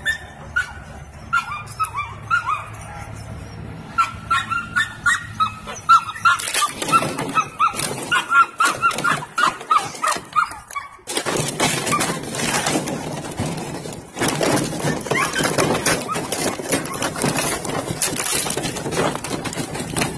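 Belgian Malinois puppies yipping and barking in a quick run of short high calls, then, about halfway through, a long stretch of plastic bottles crunching and clattering.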